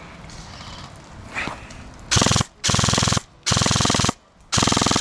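Airsoft gun firing on full auto in four short, loud bursts of rapid shots, starting about two seconds in.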